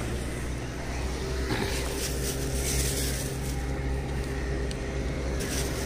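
Steady low engine drone with a constant hum, joined by a few brief rustles.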